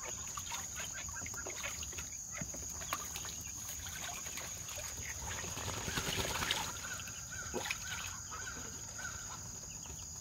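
Ducks splashing as they bathe in a plastic kiddie pool, with a steady high insect drone throughout. A short run of repeated bird calls comes in just after the splashing.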